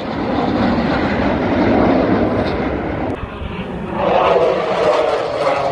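Blue Angels F/A-18 jet engines passing overhead: a loud, continuous rushing jet noise that dips briefly about three seconds in and then comes back louder.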